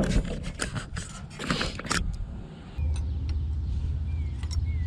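Sharp clicks and knocks of metal and plastic parts being handled and pushed into place while a fuel injector is fitted. Then, about three seconds in, a steady low hum starts from a motor or engine.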